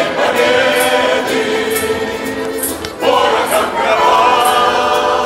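A group of mixed voices singing a wartime song together, accompanied by a button accordion (bayan), with a short break and a new phrase starting about three seconds in.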